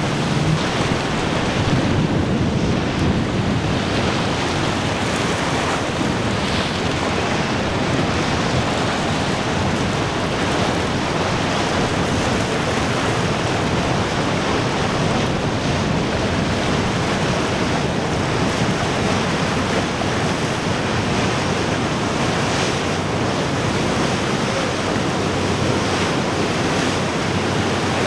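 Steady rush of surf and breaking waves, with wind buffeting the microphone.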